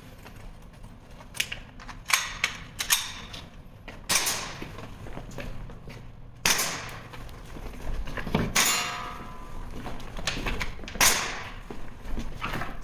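Irregular sharp knocks and thuds: a few quick clicks early, then four louder impacts spaced a couple of seconds apart, each trailing off over about a second.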